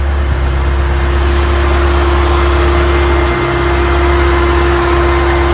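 Toyota Celica TA40's engine idling steadily, a constant low hum that stays even throughout.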